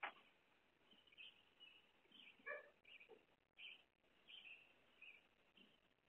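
Faint, high chirps repeating every half second or so over near silence, with a sharp click at the very start and a short pitched call about two and a half seconds in.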